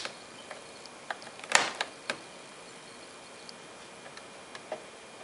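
Scattered sharp plastic clicks and knocks from the clock radio's switches being handled, about six in all, the loudest a little over a second and a half in.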